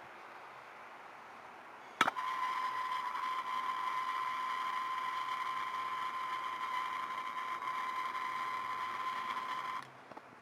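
A handheld torch heating a copper-tube battery cable splice: it lights with a sharp click about two seconds in, burns with a steady hiss and a fixed whistling tone, and shuts off abruptly near the end.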